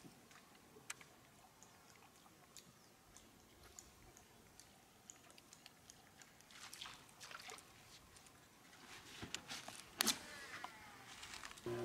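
Faint, irregular ticks and small splashes as a topwater pencil bait is twitched across the water and the reel is wound in, with a sharper swish about ten seconds in as the rod is cast again.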